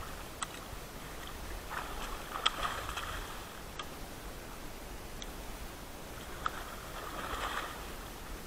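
A large hooked channel catfish thrashing and rolling at the water's surface, splashing in two bouts, with a few sharp clicks and knocks in between.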